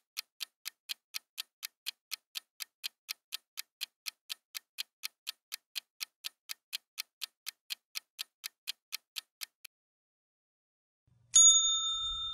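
Countdown timer sound effect ticking about four times a second for the ten-second round, stopping just before the end. A loud bell-like chime then rings out and fades, marking the answer reveal.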